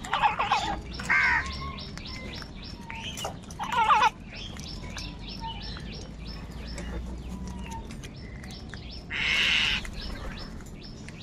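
Crows cawing: several loud, harsh caws in the first four seconds and another about nine seconds in, with small birds chirping rapidly in between.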